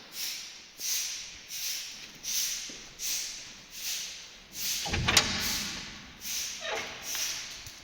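Rhythmic swishing strokes, a little more than one a second, each a short hiss that fades quickly. About five seconds in comes a louder knock with a falling scrape.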